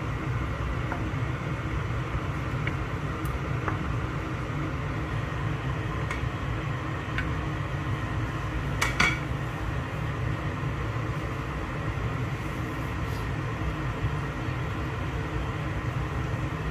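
A wok of curry simmering on a gas stove with a steady low rumble. A few light knocks of a wooden spatula on the pan come through it, the sharpest about nine seconds in.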